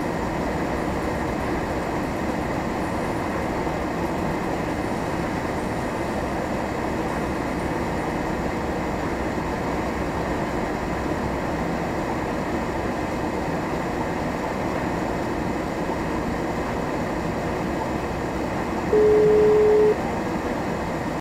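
Steady engine and tyre noise heard inside a vehicle driving on a snow-covered road. Near the end, a single steady beep lasts about a second.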